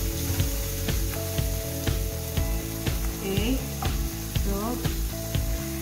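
Food sizzling in a metal frying pan while a wooden spatula stirs and scrapes the mixture. Background music runs underneath with a steady beat of about two a second and a few rising melodic notes.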